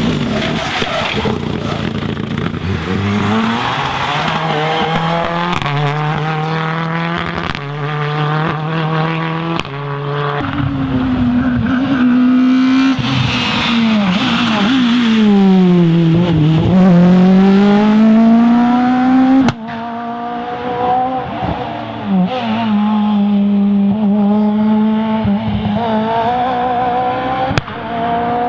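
Rally car engines at race pace, revs climbing and dropping with gear changes. About sixteen seconds in the pitch dips under braking and rises again as the car accelerates away. The sound breaks off abruptly twice, two-thirds of the way through and near the end, as another car takes over.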